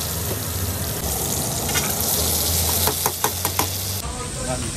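Hot oil sizzling in an iron karahi as fried chicken is strained out through a perforated ladle, with a few sharp knocks about three seconds in.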